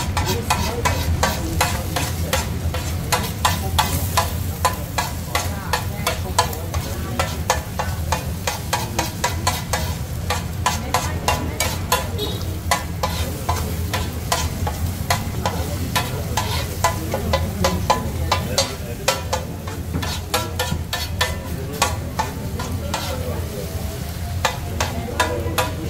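Metal spatula rapidly chopping and scraping eggs and sausage on a hot flat steel griddle: a fast, irregular clatter of blade strikes over the sizzle of frying, with a steady low hum underneath.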